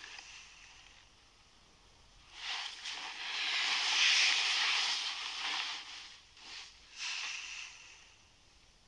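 Bedsheets and duvet rustling as two people shift in bed: one long rustle starting about two seconds in, then two shorter ones.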